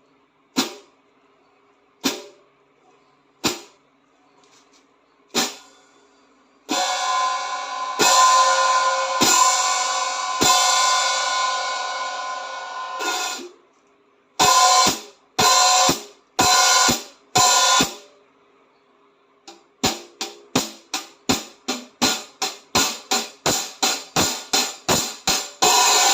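Merielle B-10 Series 14-inch dark hi-hats played alone. It begins with single short strikes about a second and a half apart. Then comes a long ringing wash, then four ringing strokes that are each cut off after about a second. It ends with a quickening run of strokes that opens into a sustained wash.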